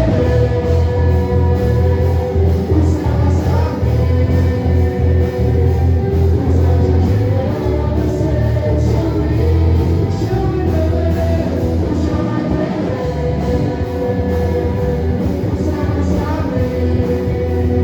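Loud worship music from a band with a steady drum beat and heavy bass, with singing.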